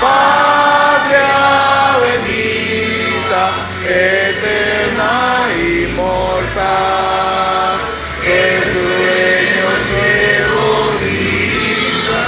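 A group of people singing a political party's anthem together, with held, gliding notes in a steady chorus.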